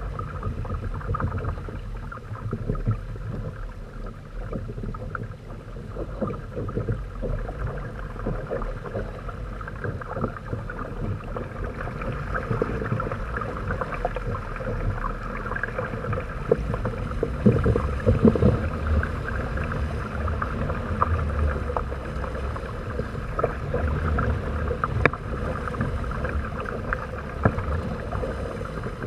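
Water rushing and splashing along the hulls of a Hobie Tandem Island trimaran under sail, with wind buffeting the microphone. It grows louder about halfway through.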